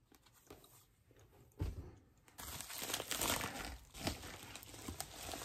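Packaging crinkling and rustling as items are pulled out of a mailed package, after a soft thump about a second and a half in.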